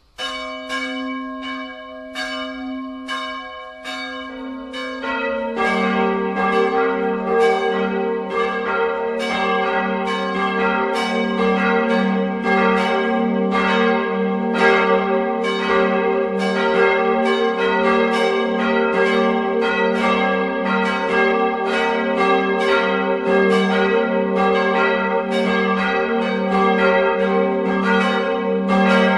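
Church bells ringing: a single bell strikes on its own at first, a second joins about four seconds in, and more come in shortly after, so that several bells then ring together in a full, steady peal.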